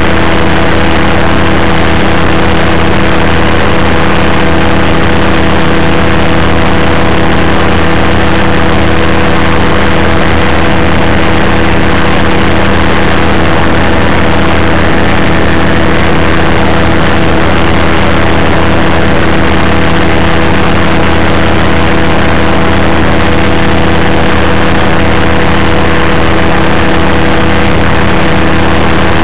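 Rotec Rally 2B ultralight's two-stroke engine and propeller running steadily in flight, loud and close to the onboard camera, with no change in pitch.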